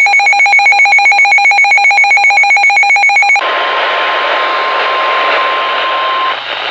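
Emergency alert tones. A rapidly warbling electronic alert tone cuts over, about three seconds in, to a steady single-pitch weather-radio alarm tone over radio hiss. That tone stops just before the end.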